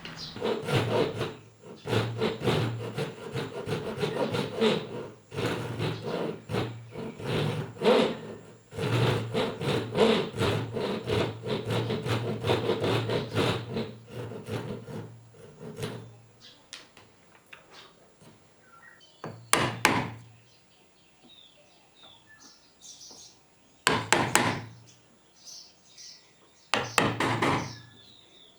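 A hand tool worked back and forth on pine wood: a fast, unbroken run of rasping strokes for about sixteen seconds, then three short bursts of strokes with pauses between them.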